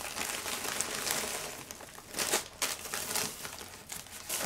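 Plastic packaging crinkling and rustling as a poly mailer and clear plastic bags are handled and the contents pulled out, in irregular crackles, loudest a little past the middle.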